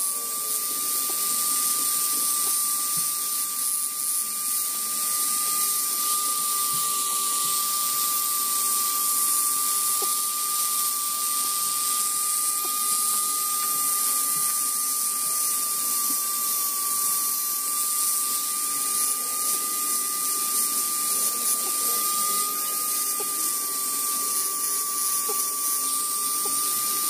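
Handheld mini grinder (rotary carving tool) with a small burr running at high speed while carving wood, giving a steady high whine that wavers only slightly as it works.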